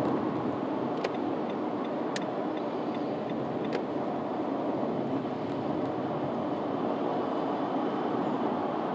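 Steady road and engine noise of a moving car, heard from inside the cabin, with a few light clicks in the first few seconds.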